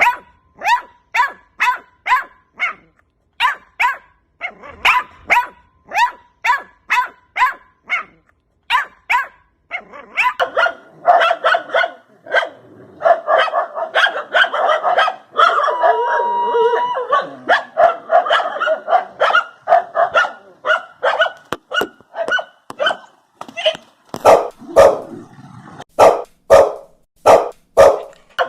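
Dogs barking over and over: sharp single barks in quick series, then a denser stretch of overlapping barking through the middle, then sharp, loud barks again near the end.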